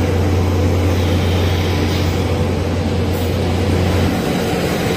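Loud steady engine noise on an airport apron: a deep hum over a broad rush. The deep hum cuts off about four seconds in, while the rush carries on.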